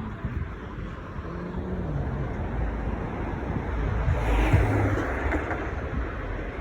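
Car on the road: a steady low rumble of engine and tyres, with a louder rushing swell about four seconds in.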